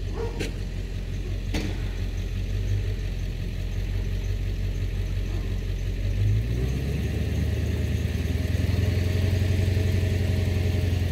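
A tow vehicle's engine running at idle, then pulling harder and louder from about six seconds in as it draws the travel trailer forward onto leveling boards. Two sharp clicks near the start.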